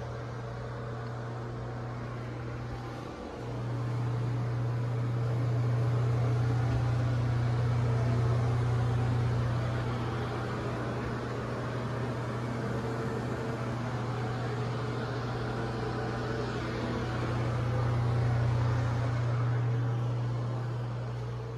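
An air-handling fan running: a steady low hum with a hiss over it. It cuts out briefly about three seconds in, then grows louder in the middle and again near the end.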